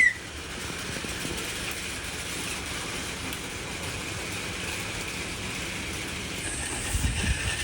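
Battery-powered toy trains running on plastic track, a steady whirring rattle of small motors and wheels.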